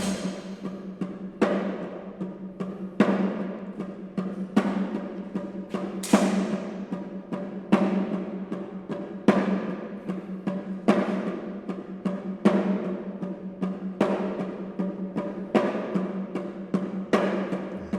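Music with a slow, steady drum beat: a heavy hit about every second and a half, each ringing out, over a low sustained hum.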